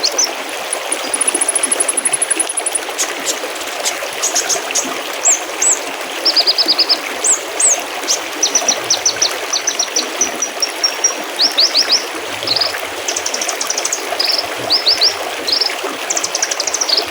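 Mountain stream babbling steadily, with small songbirds singing high rapid trills and short chirps over it throughout.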